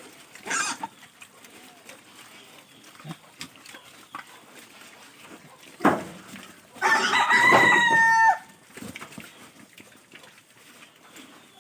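A rooster crowing once, one long call about seven seconds in that drops in pitch as it ends. A short noisy burst comes near the start and a sharp knock just before the crow.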